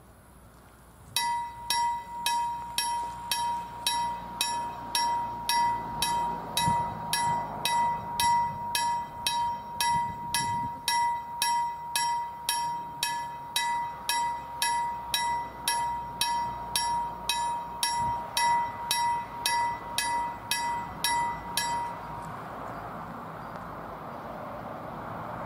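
Level-crossing warning bell striking about twice a second with a bright ringing tone, signalling that the barriers are coming down for an approaching train. It stops about 22 seconds in, once the barriers are down, and a fainter steady noise builds after it.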